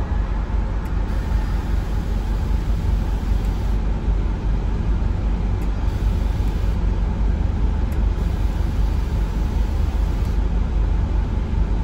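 Scania OmniExpress coach standing with its engine idling while the air suspension raises the body back to normal ride height after kneeling: a steady low engine hum with an even hiss over it.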